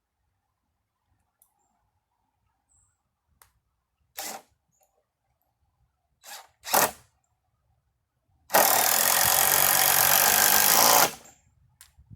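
Power drill driving a screw into lumber: three short bursts, then one steady run of about two and a half seconds that stops suddenly.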